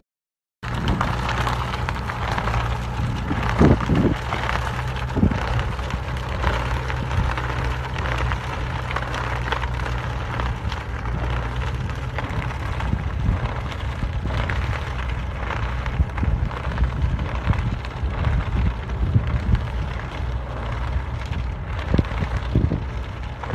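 Tractor engine running steadily as it pulls a working manure spreader, with rough wind noise on the microphone over it.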